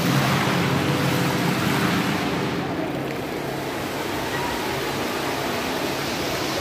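Fountain water jets splashing down into the pool: a steady rush of falling water.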